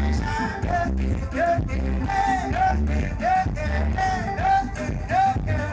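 Music: a sung melody with notes that bend and slide, over a steady, bass-heavy beat.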